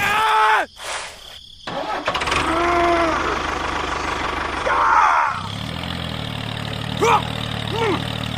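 A short vocal exclamation, then an engine starts about two seconds in and runs steadily. Its hum changes to a different steady note about five seconds in, with brief vocal calls over it.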